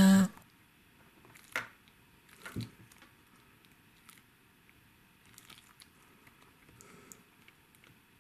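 Fingers handling a small plastic toy figure: a short knock about a second and a half in and another a second later, then a few faint ticks.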